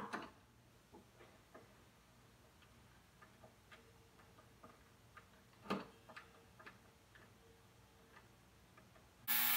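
Hand screwdriver driving a small wood screw into a wooden clock-cabinet pillar: faint, irregular ticks as the screw turns, with one sharper click a little past halfway.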